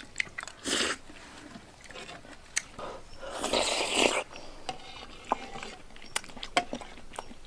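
A person slurping hot, thick porridge off a metal spoon, sucking in air noisily: a short slurp under a second in and a longer, louder one about halfway through. Small clicks of chewing and the spoon come in between.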